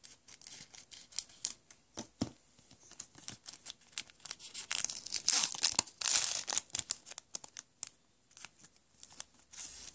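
Foil wrapper of a Pokémon POP Series 5 booster pack cut with scissors, then crinkled and torn apart by hand in a run of crackles, loudest about halfway through.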